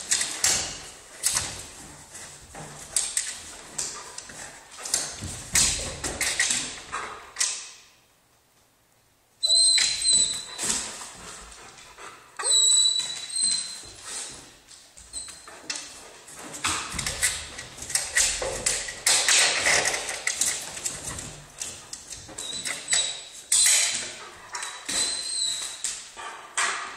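German Shepherd left alone at a window, whining and whimpering in thin high cries, with repeated taps and thumps from its paws at the glass and sill. It falls quiet for a moment about eight seconds in.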